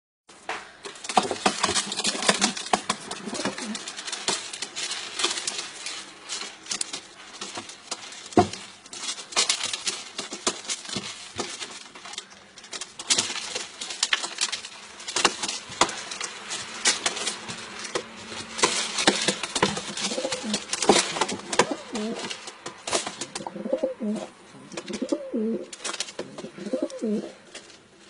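Pigeon cooing several times in the second half, over constant scratching and scuffling clicks as a kitten tussles with it on a gritty floor.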